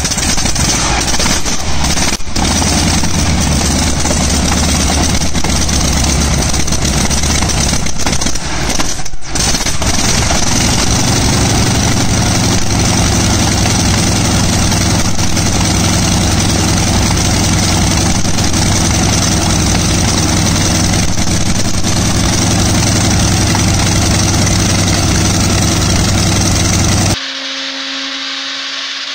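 Shvetsov ASh-62 nine-cylinder radial aircraft engine running loud on a test stand after a cold start, with two brief drops in its sound in the first ten seconds before it settles into a steadier, even run. Near the end it cuts suddenly to a much quieter steady hum with a clear tone.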